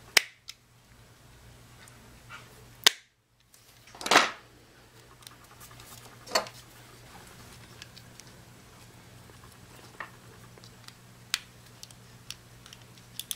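Red-handled snips cutting a small nub off a hard plastic blaster part, then scattered clicks and ticks of the plastic parts being handled and fitted together. The sharpest snaps come about three and four seconds in.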